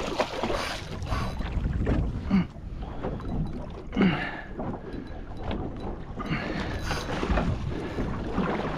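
Wind on the microphone and water sloshing around a small boat's hull, with a few louder splashes as a hooked yellowtail kingfish thrashes at the surface beside the boat.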